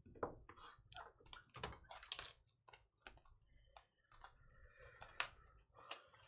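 Faint, irregular clicking and tapping, several light clicks a second.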